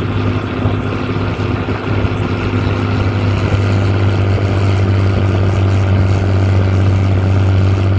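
Diesel engine of a farm machine (tractor or combine) running steadily under way, a low, even drone that grows slightly louder.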